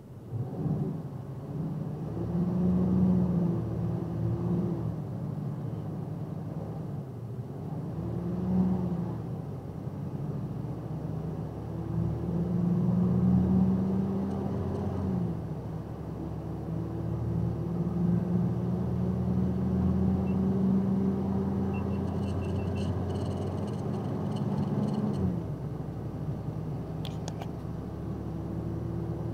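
Box truck's engine heard from inside the cab, accelerating from near walking pace. Its pitch climbs and falls back at each gear change, with a long slow climb before the last shift near the end, and a short run of light clicks just before that shift.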